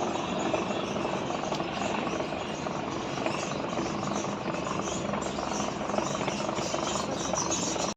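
Automatic sliding-gate gear motor running steadily, which the installer calls smooth.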